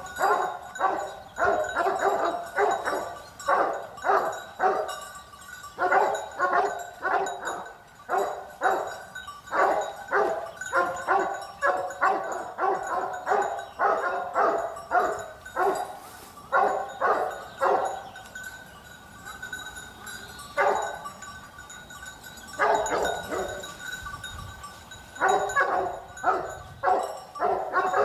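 A dog barking and yapping over and over, two or three barks a second in long runs, with a pause about two-thirds of the way in before it starts again.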